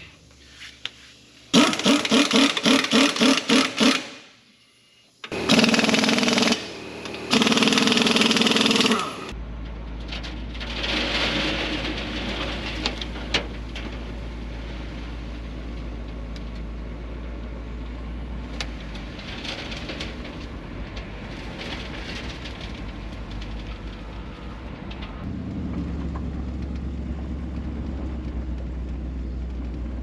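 Several loud bursts of a rattling power tool, pulsing fast and evenly, fitting an impact wrench on the wheel's lug nuts. After that, a machine's engine runs steadily, heard from inside the skid steer's cab, and it gets louder and fuller near the end.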